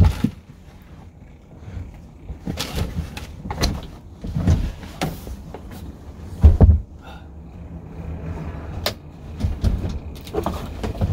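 Clunks and thumps of a camper van's bench seat being folded down into a bed, its frame and cushions knocking into place several times, the heaviest thump about six and a half seconds in.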